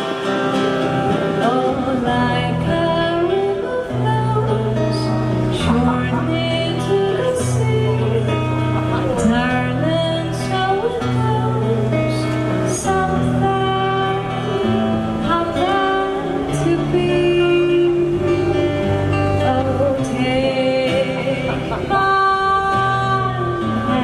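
A woman singing a song live into a microphone, accompanied by a strummed acoustic guitar through the stage PA; her voice comes in about two seconds in over the guitar.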